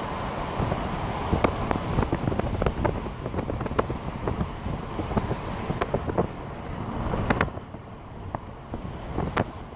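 Road noise inside a moving vehicle: a steady rumble and hiss with frequent small rattles and knocks, getting quieter and duller about seven and a half seconds in.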